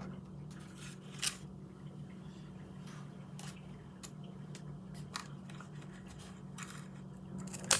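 Scissors snipping into a plastic bag of lentils, a few separate short cuts a second or two apart, with the sharpest snip near the end.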